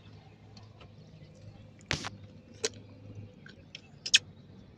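Metal tool clicks and scrapes against the alternator's regulator screws while a stuck screw is worked loose: a loud click about two seconds in, another just after, and a quick pair near the end, over a faint low hum.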